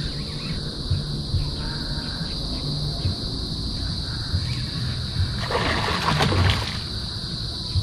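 Hooked barracuda splashing and thrashing at the water's surface on the line, loudest in a burst about five and a half seconds in, over steady high-pitched chirring of crickets.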